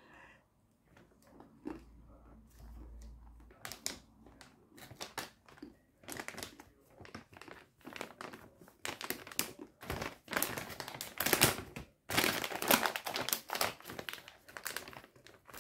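A crinkly peanut packet rustling and crumpling as it is handled. It comes in scattered crackles at first, then turns louder and nearly continuous in the second half.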